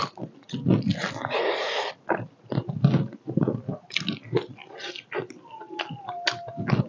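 Close-miked chewing and lip-smacking while eating pork leg: many quick wet smacks and clicks, with a longer noisy stretch of chewing about a second in.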